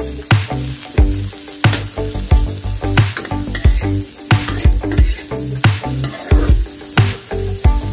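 Sliced onions sizzling in hot oil in a wok while a metal spatula stirs and tosses them, with frequent sharp clacks and scrapes of the spatula against the pan over a steady sizzle.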